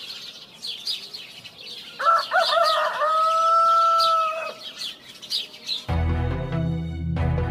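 A rooster crows once, starting ragged and then holding one long steady note, over small birds chirping. Music with a deep bass line and plucked notes comes in near the end.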